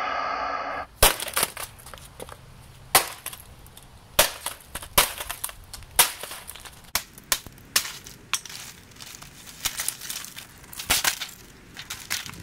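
Repeated hammer blows smashing an old laptop: sharp cracks and crunches of shattered screen glass and plastic casing, spaced irregularly about a second apart. A short musical sting cuts off about a second in, just before the first blow.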